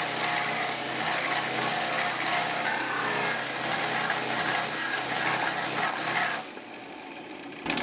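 Mini Max Proline, a small Pullmax-style reciprocating sheet-metal machine, running with its dies working the edge of an aluminum panel as it is fed through to fold a flange. The noise is steady, then drops off about six and a half seconds in.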